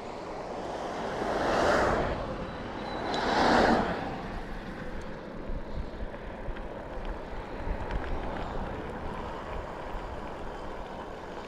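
Two vehicles passing on the road, one after another, each swelling up and fading away within about a second and a half, followed by steady low background noise.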